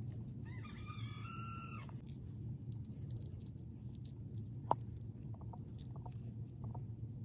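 A rooster crows once, one call of about a second and a half, over a steady low background rumble; a single sharp click follows a few seconds later.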